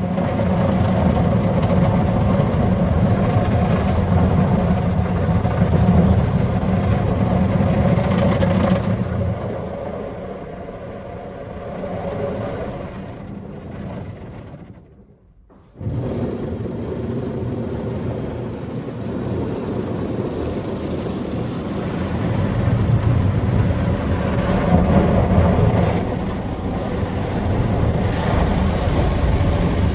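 Red soft-touch foam brushes of a Mark VII ChoiceWash XT car wash scrubbing over the car's body and windows, heard from inside the cabin as a steady churning hiss over a low hum. The sound eases off about a third of the way in, drops out briefly about halfway, then comes back suddenly at full level as the brushes return.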